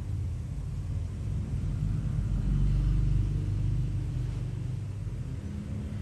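Low background rumble that swells about halfway through, then eases.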